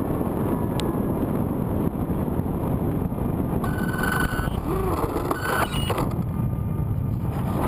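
Wind rushing over the microphone of a camera riding on an RC model airplane in flight, a steady rough rush. From about halfway, high steady tones come and go in short stretches over it.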